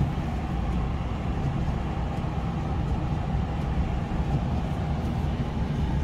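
Ram pickup truck pulling away slowly, heard from inside the cab: a steady low engine and road rumble with no sudden changes.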